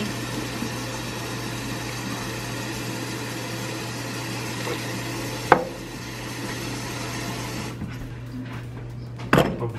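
Steady low hum, with one sharp snap of metal pruning shears closing about halfway through and a couple of knocks near the end.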